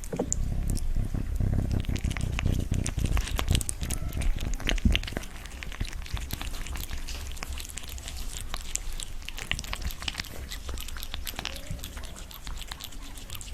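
A cat eating boiled fish, chewing with quick, irregular wet smacks and clicks, heavier in the first few seconds.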